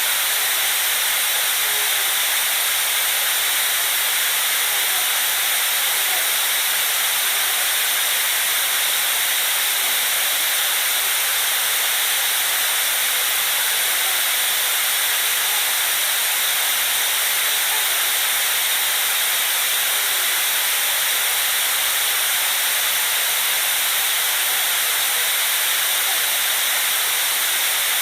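White noise: a steady, even hiss, strongest in the upper range and unchanging in level.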